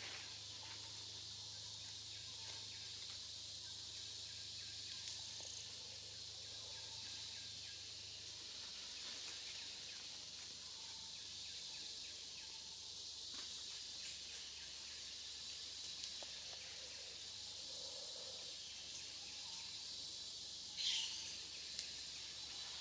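Steady high-pitched drone of insects in the forest, with a brief rustle and a sharp click near the end.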